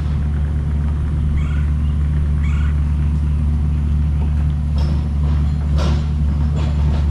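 Engine of a small machine running steadily at a low, even drone, with two faint knocks about five and six seconds in.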